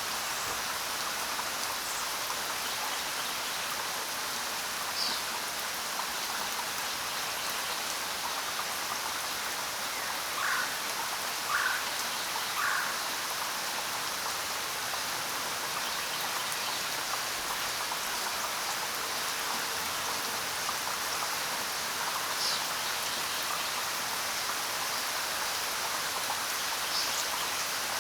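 Steady rain falling, with a few short bird chirps scattered through it and three lower bird calls in a row about a third of the way in.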